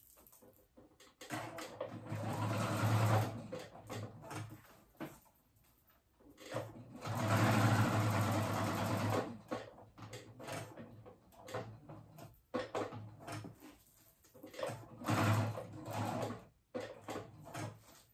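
Domestic electric sewing machine stitching a strip of Velcro onto fabric in several stop-start runs with short pauses between them. The longest run comes about seven to nine seconds in.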